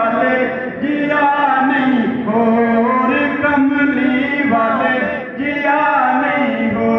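A man singing a Punjabi devotional naat solo into a microphone, drawing out long ornamented notes with short breaths between phrases.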